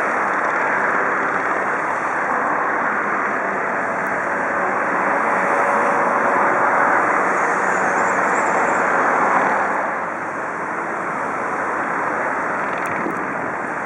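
Piston-engined biplane running overhead in aerobatic flight, a steady drone that swells and then drops off about ten seconds in as the plane moves away.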